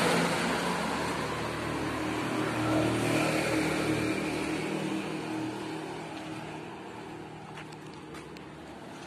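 A car driving past on the road, its engine and tyre noise fading away over several seconds.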